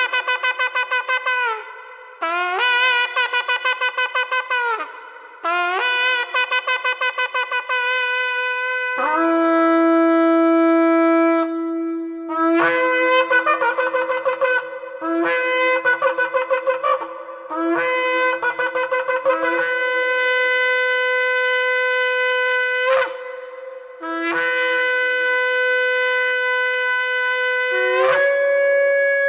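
Shofar blasts, more than one horn sounding at once. There are runs of rapid broken, quivering notes, then long steady held notes near the end.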